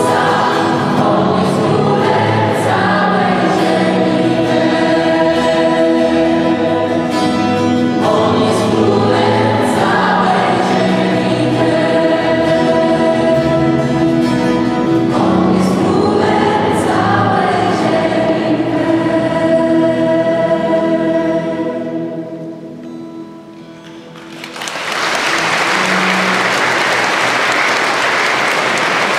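Gospel choir singing with acoustic guitar and string accompaniment. The song ends about 22 seconds in, and after a short lull the audience applauds.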